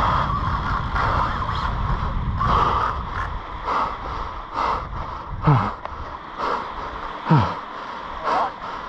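An angler's heavy, strained breathing, about one breath a second, while he fights a hooked shark on a surf rod, with two short falling groans as the loudest moments past the middle and near the end. A low rumble fills the first three seconds.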